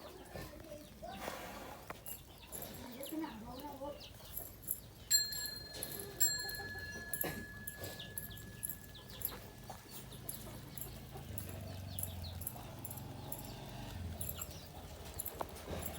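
Chickens clucking softly while feeding, with scattered short taps and a sharp knock about five seconds in. A thin, steady high tone sounds for a few seconds from about five seconds in.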